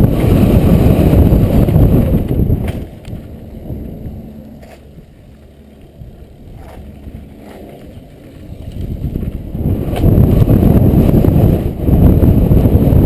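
Wind buffeting a helmet-mounted microphone and mountain-bike tyres rumbling over a dirt trail on a fast downhill run. The rush eases off for several seconds in the middle, with a few sharp clicks, then builds back up to full loudness.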